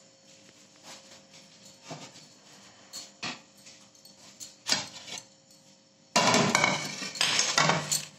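Kitchen dishes being handled on a countertop: a few light knocks about a second apart, then about two seconds of loud clattering and scraping near the end as a serving dish is moved.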